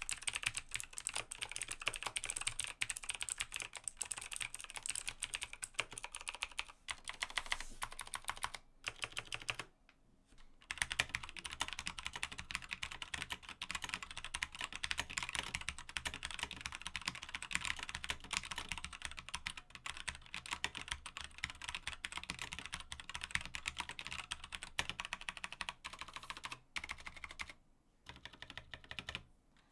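Continuous fast typing on a Razer BlackWidow mechanical keyboard with clicky Razer Green switches. After a short break about ten seconds in, it changes to fast typing on a BlackWidow Chroma V2 with Razer Orange switches, which are tactile and quieter, and this runs until a second pause near the end.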